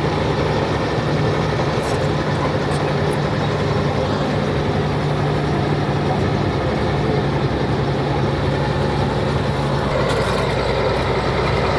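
Komatsu D80A bulldozer's diesel engine running steadily with an even low drone, with a few faint high clicks about two to three seconds in and again near the end.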